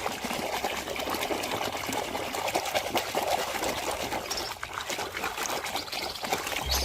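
Steady trickle of water with small splashes as a muddy toy is washed.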